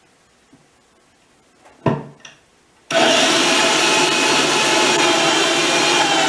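Handheld power drill boring into a cedar log, starting suddenly about three seconds in and running steadily, after a couple of short knocks.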